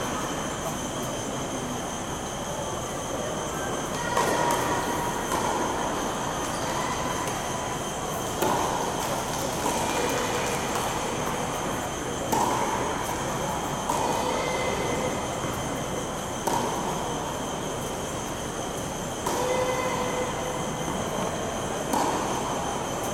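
Tennis ball being hit back and forth in a rally on an indoor hard court: a sharp knock every couple of seconds, each ringing briefly in the large hall, over a steady ventilation-like hum with a constant high whine.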